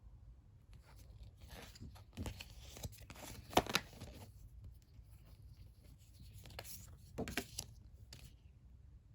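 Paper and plastic packaging being handled, rustling and crinkling in two stretches, with a sharp tap about three and a half seconds in.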